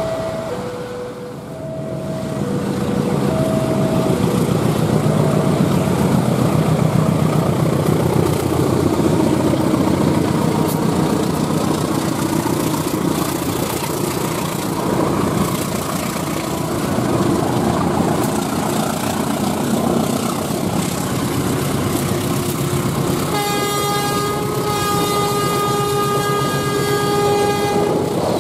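Two CC203 diesel-electric locomotives working in double traction run close by with a low, heavy engine rumble over road traffic noise. From about 23 seconds in, the locomotive horn sounds a long, multi-tone blast with a couple of short breaks. In the first few seconds a two-note electronic beeping alternates in the background.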